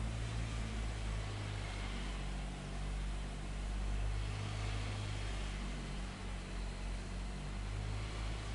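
A steady low engine-like drone with a constant hiss over it, with no distinct knocks or changes.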